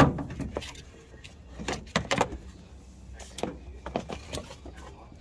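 Plastic upper windshield-wiper cowl grill of a Dodge Challenger being handled and lifted off by hand: a scrape at the start, then scattered light plastic knocks and clicks.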